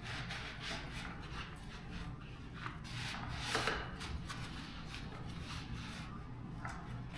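Microfiber cloth rubbing and wiping over an e-bike's frame in quick, irregular strokes, over a faint steady low hum.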